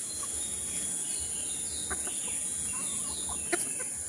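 Outdoor ambience of steady high-pitched insect buzzing, with short falling bird chirps repeating through the middle and a single sharp click about three and a half seconds in.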